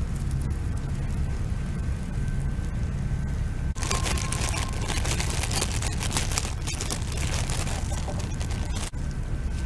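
Wood campfire crackling and popping over a steady low rumble. About four seconds in, the crackling abruptly becomes much denser for about five seconds, then cuts back.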